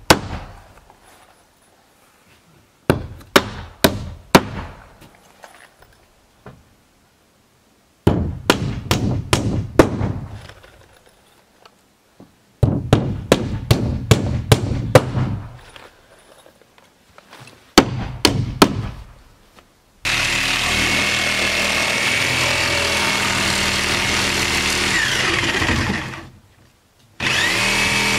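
A hammer drives nails into OSB wall sheathing in quick clusters of blows with pauses between. About two-thirds of the way in a power tool starts running steadily and loudly, stops briefly near the end, then starts again.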